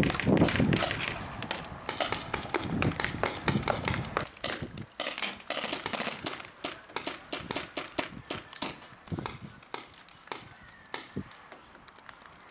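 Paintball markers firing in a rapid, irregular string of sharp pops that thins out and grows quieter toward the end. A dull low noise is heard in the first second.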